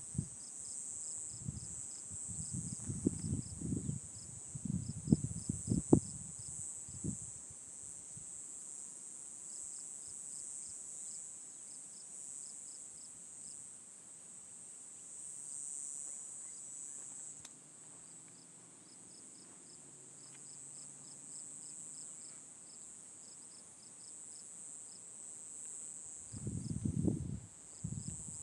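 A steady, high-pitched chorus of insects, with short chirps repeating several times a second over it. Low thumps and rumbles break in during the first seven seconds and again near the end.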